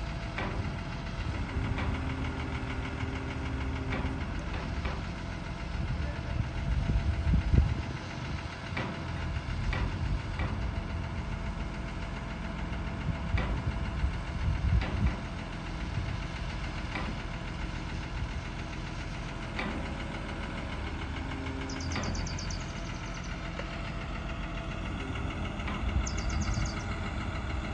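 Mobile crane's diesel engine running steadily, with a few short knocks.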